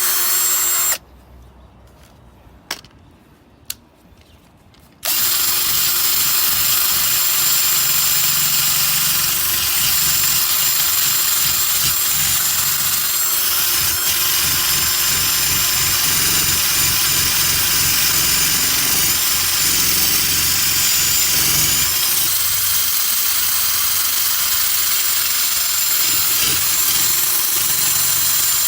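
Handheld electric rotary tool running steadily while buffing polishing compound into scuff marks on a car bumper. It stops abruptly about a second in, leaving a few seconds of quiet with two clicks, then starts again about five seconds in and runs steadily.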